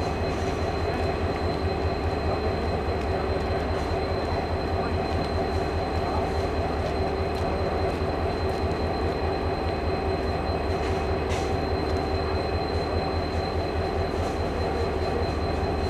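Pacific National XR-class diesel locomotives running steadily, a low engine throb with several steady humming tones above it. There is a short click about eleven seconds in.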